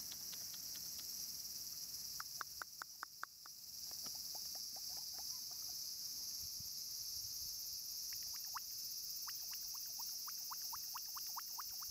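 Steady high-pitched chorus of insects, with runs of rapid short chirps that drop in pitch, one about two seconds in and another from about eight seconds on.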